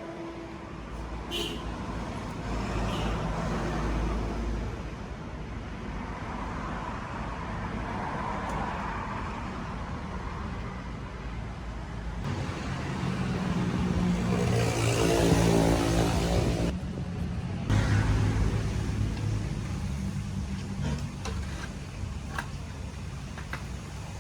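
A small engine running steadily, its speed rising to a louder stretch about halfway through that cuts off suddenly, then running on more quietly.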